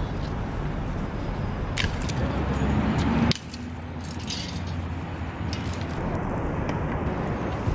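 Metal clinking and rattling from a bicycle and its cable lock being worked at and handled, with a few sharp clicks, over steady city traffic noise.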